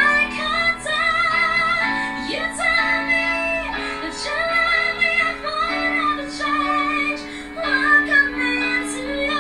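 Female pop vocalist singing a ballad with strong vibrato, sustaining long notes over held instrumental chords.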